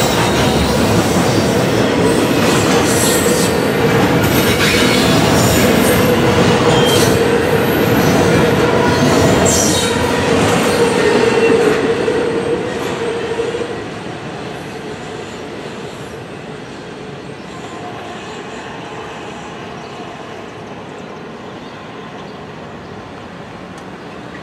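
Double-stack intermodal freight train rolling past, its steel wheels squealing in a steady tone with clicks and clacks over the rails. About 13 seconds in, the last cars pass and the sound drops to a quieter rumble as the train moves away.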